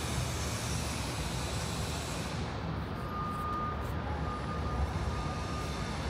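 Steady rumble of urban traffic or transport, with a thin steady whine coming in about halfway.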